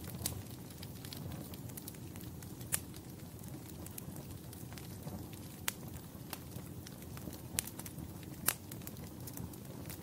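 Wood fire burning with a steady low rumble and scattered sharp crackles and pops, a few of them louder, about three seconds in and near the end.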